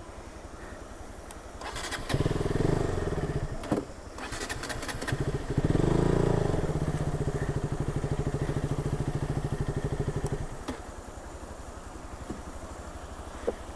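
Motorcycle engine idling with a steady low pulse. It is revved briefly about two seconds in, then held at higher revs for about five seconds before dropping back to idle, as the bike is ridden over rough off-road ground.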